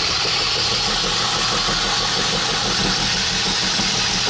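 Bench combination belt-and-disc sander running steadily, a motor hum under a loud hiss as the aluminium edge of a radiator is ground against the sanding disc.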